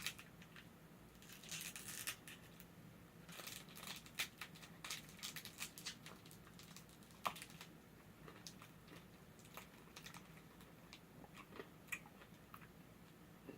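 Faint crinkling and rustling of a candy wrapper being handled and opened, in two short spells in the first half, followed by scattered soft clicks.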